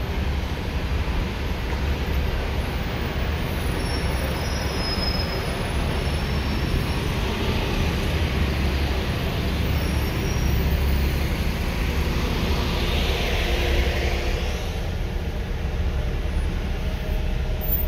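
Slow, dense road traffic heard from inside a car: a steady low rumble of engines and tyres, with a hiss that swells and fades about thirteen seconds in.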